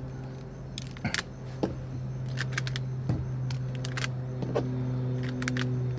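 Rubber bands being stretched and snapped one at a time onto a watermelon, a scattered series of short sharp snaps and clicks, over a steady low hum.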